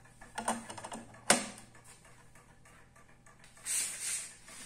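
Hand handling a wooden mantel clock at its glass bezel: a few light clicks, then one sharp click a little over a second in, and a short rustle near the end.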